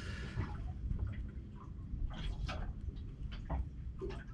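Water lapping against a boat's hull, with a few soft clicks and taps.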